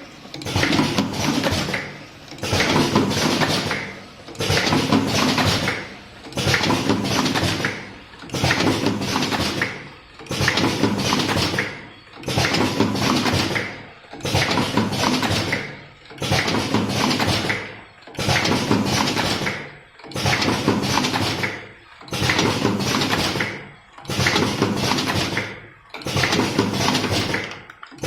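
Automatic vertical cartoning machine running, its clattering mechanical noise swelling and dropping in a steady cycle about once every two seconds as it packs box after box.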